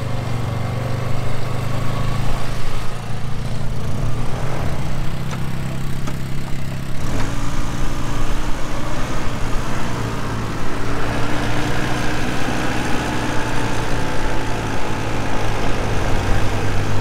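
Polaris 700 twin quad bike engine running steadily. The sound shifts abruptly about seven seconds in, and its pitch climbs a little from about eleven seconds as the bike gets under way.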